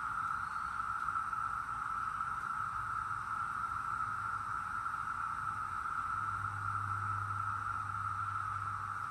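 Steady, unbroken drone of a Brood X periodical cicada chorus, many cicadas calling at once. A faint low hum joins underneath about two-thirds of the way through.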